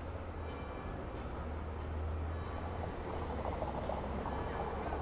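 Street traffic with a light-rail tram passing: a steady low hum under the general road noise, with a thin high whine coming in about two seconds in.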